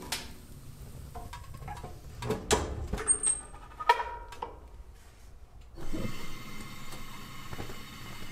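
Firewood knocking against the firebox of a wood stove and the stove's metal door clunking shut with a short ring, a handful of sharp knocks. About six seconds in, a steady hiss starts: a propane camp stove burner alight.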